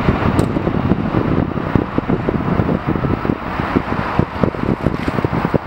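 Boeing 767-300ER jet engines heard from beside the runway as the airliner flares just before touchdown: a steady, loud rushing, with heavy wind buffeting on the microphone.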